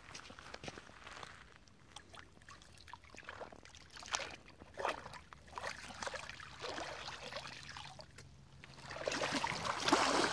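River water splashing and trickling as a cast net is hauled in through it, with scattered small splashes, getting louder near the end as the net is lifted out and water pours off it.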